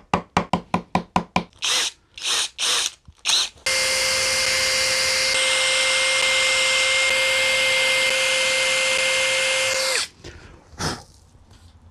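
Cordless Erbauer drill running steadily for about six seconds, boring a small pilot hole down into plywood, then stopping abruptly. Before it comes a quick run of light taps and a few short bursts.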